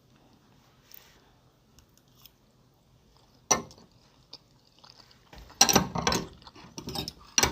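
Close-miked eating of bakso meatballs. A single sharp click comes about three and a half seconds in, then a burst of loud chewing and clattering near the end.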